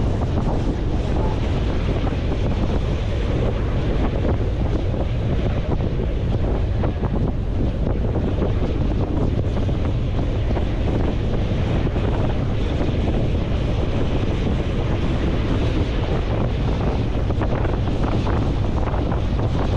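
Wind buffeting the microphone over the steady rush of a boat running across open sea, an even, unbroken noise heavy in the low end.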